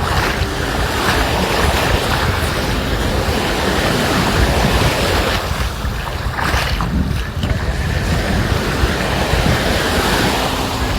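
Sea surf washing onto the beach, with wind buffeting the microphone in low, gusty rumbles.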